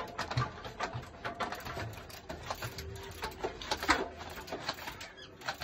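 Mountain bike being hopped up stone steps on its rear wheel: irregular clicking of the rear hub's freewheel ratchet and knocks of the tyre and frame on the stone, with one sharper knock about four seconds in.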